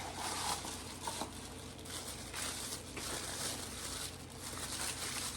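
Crinkling and rustling of packaging as a small cardboard toy box is opened and the toy inside is unwrapped by hand, in a run of uneven rustles.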